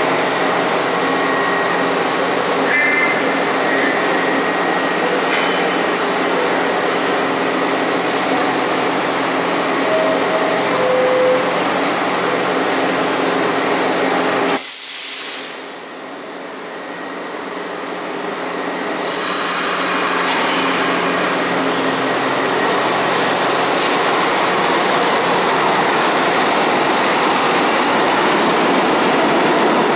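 Bombardier R62A subway train humming steadily while standing at a platform, with a short two-note falling chime about ten seconds in. After a sudden drop in sound halfway through, the train pulls out, its wheels and motors growing louder toward the end.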